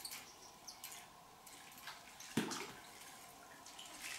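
Light scattered clicks, then about two and a half seconds in a single water splash as a hooked carp thrashes at the surface of the pool while it is reeled in.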